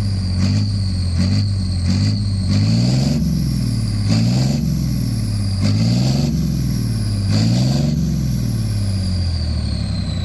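Leopard 2A7V tank's V12 twin-turbo diesel engine being revved over and over, its pitch rising and falling about once a second, with a high whine that drops away near the end as the revving settles.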